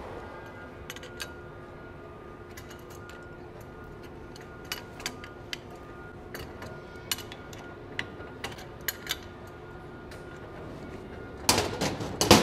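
Scattered metallic clicks and clinks of a hand wrench tightening the steel cradle clamp bolt on a conveyor belt-cleaner pole, with a louder cluster of clanks near the end, over quiet background music.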